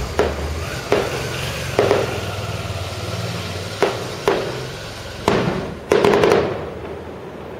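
Fireworks going off: a string of loud sharp bangs, each echoing, with a quick cluster of several bangs about six seconds in.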